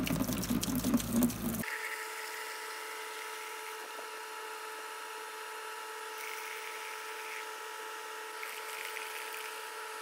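Vinegar pouring from a plastic gallon jug into a plastic bucket of liquid, stopping abruptly about a second and a half in. Then a quieter steady electric whine made of several held tones.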